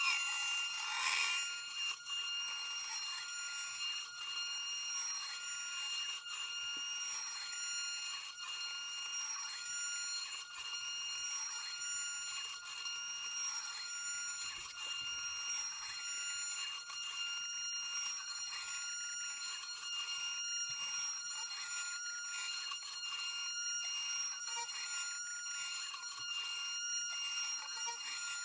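Sainsmart Genmitsu 3018-PRO CNC router carving plywood: the spindle runs with a steady high whine as the bit cuts along the engraving path. The whine is a little louder and harsher for about the first two seconds.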